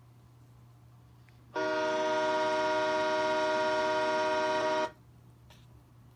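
Train horn set off by a pull handle, sounding one steady blast of about three seconds: several notes at once, starting and stopping abruptly.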